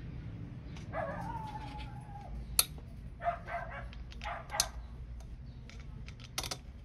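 A dog whining: one long high cry about a second in that rises and then slowly sinks, followed by two shorter cries. A few sharp clicks fall between them.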